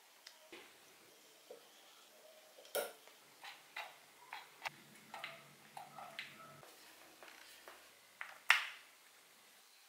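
Grey PVC pipe parts handled and fitted together, clicking and knocking lightly against one another in scattered taps, with a sharper knock about three seconds in and the loudest near the end.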